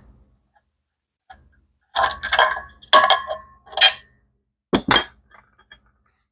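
Metal clinking and clattering, like hand tools or small steel parts being handled and set down: a burst of quick clinks about two to four seconds in, then a last sharp pair near five seconds and a few light ticks.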